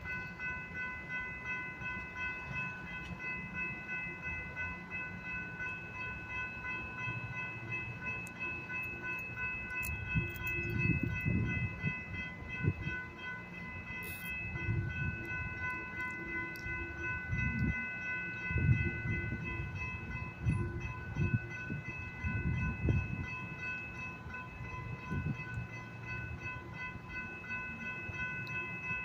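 A warning bell rings steadily in rapid strokes throughout, typical of a grade crossing's bell while the gates are down. Under it, the low rumble of the Arrow's Stadler FLIRT diesel multiple unit swells and fades as the train rolls in and slows, loudest in the middle.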